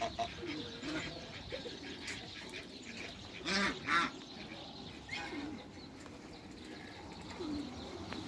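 Geese calling. Short, soft, low calls come every second or so, with a louder, higher pair of calls about three and a half seconds in.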